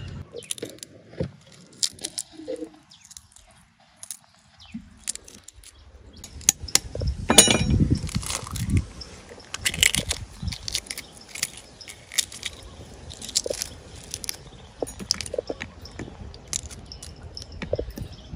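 Boiled duck eggshell crackling and clicking in irregular small cracks as fingers break it and pick the pieces off, with one louder click about seven seconds in.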